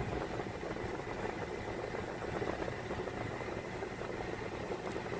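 Car engine and tyres heard from inside the cabin as the car rolls slowly: a steady hum of engine and road noise.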